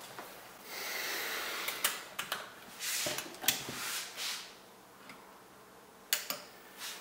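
Hands handling sleeved power-supply cables and plugging a power connector into a graphics card. Rustling, with several sharp plastic clicks and knocks.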